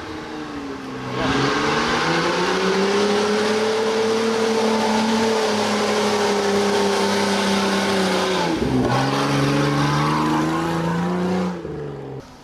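Off-road 4x4 engine revving hard under load. It climbs about a second in and holds high revs for several seconds, drops briefly, revs up again, then falls away near the end.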